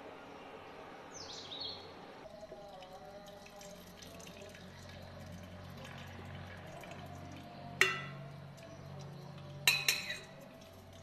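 Curdled milk and whey pouring and dripping from a stainless steel bowl into a cotton straining cloth as the paneer curds are drained. A steel spoon clinks against the bowl once about eight seconds in and two or three times near the end as the last curds are scraped out.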